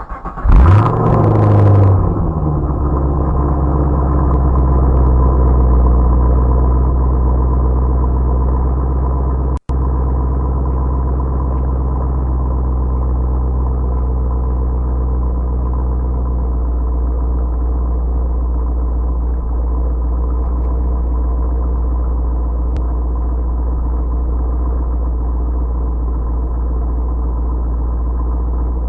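2016 Chevrolet SS's 6.2-litre V8 starting, its revs flaring up briefly, then settling into a steady idle.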